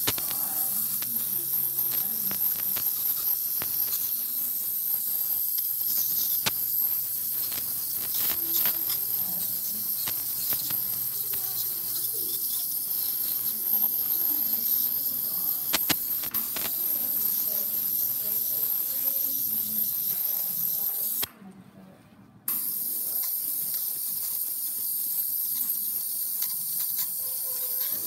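Ultrasonic dental scaler running, its water spray making a steady high hiss as the tip works along a dog's teeth. The sound cuts out suddenly for about a second near the end, then carries on.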